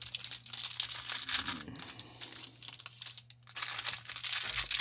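Thin clear plastic bag of minifigure parts crinkling as hands handle it and pull it open, with a brief lull about three seconds in.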